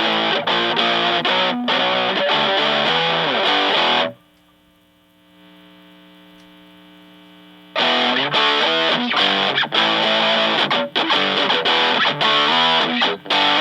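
Electric guitar (Fender Stratocaster) played through a hand-wired PineTop Distortion pedal into a Fender Blues Junior amp, gain at about two o'clock: distorted riffs and chords. About four seconds in the playing drops away to a faint held tone for a few seconds, then picks up again near the eight-second mark.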